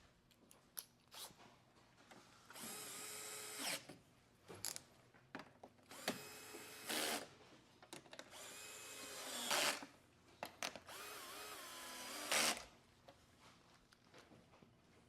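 Battery power driver run in four short bursts of a second or so, its motor pitch wavering, each ending in a louder burst as a fastener is driven home. Faint small clicks of handling fall between the runs.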